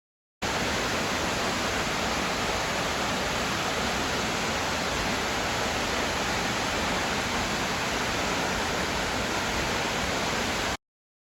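Waterfall pouring: an even, steady rushing of falling water that cuts in abruptly just after the start and cuts off abruptly near the end.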